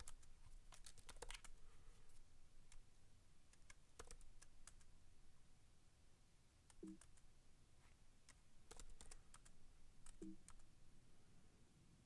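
Faint computer keyboard typing: keystroke clicks in short runs with pauses between them.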